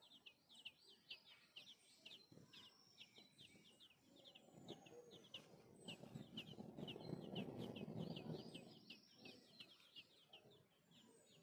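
Small birds chirping faintly in a quick, steady run of short high notes, several a second. A lower, rougher noise swells up under them in the middle and fades again.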